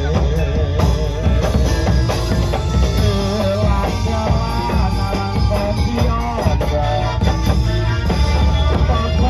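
Loud live Javanese dance music from a gamelan ensemble with drums keeping a steady beat and a wavering melody line over it.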